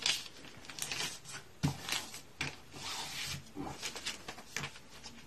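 Folded A4 paper being smoothed and creased flat by hand on a tabletop: a run of irregular soft rustles and brushing strokes.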